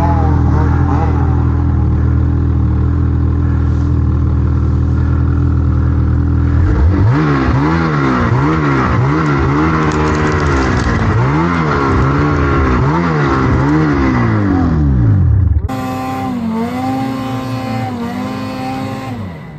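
Snowmobile engine held at a steady high rev, then revved up and down about once a second as the sled churns through deep powder snow. Near the end a second snowmobile engine is heard at a lower level, revving with short dips.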